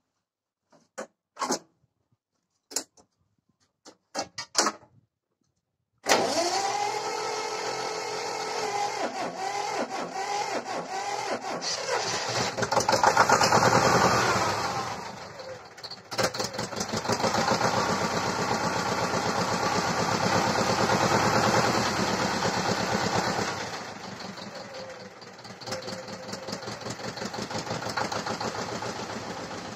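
Vladimirets T-25 tractor's two-cylinder air-cooled diesel running, coming in suddenly about six seconds in after a few scattered clicks. It is revved up to its loudest about midway, then drops back and runs on more steadily, quieter near the end.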